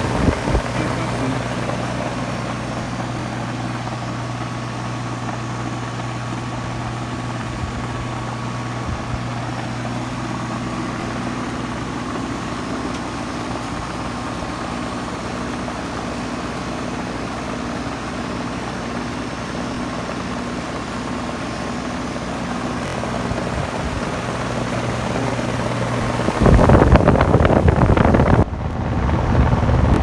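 Ruud Achiever heat pump outdoor unit running: a steady low hum with the rush of its condenser fan. About three and a half seconds before the end a much louder rush of air takes over, as the fan's exhaust blows across the microphone held over the grille.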